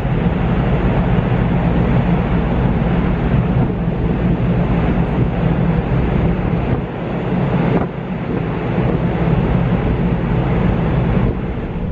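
Steady, loud rumble of wind and the ship's engines on the deck of the Taiheiyo Ferry Kitakami under way, dipping briefly near the end.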